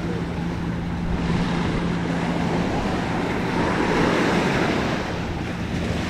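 Small sea waves breaking and washing up the sand at the water's edge, with wind buffeting the microphone. The wash swells about a second in and again around four seconds. A steady low hum underneath fades out a little before halfway.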